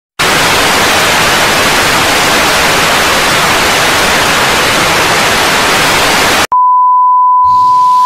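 Loud TV-static hiss, as from a detuned television, that cuts off abruptly after about six and a half seconds. It gives way to a steady high-pitched beep like a test tone, with a faint rising sweep starting under it near the end.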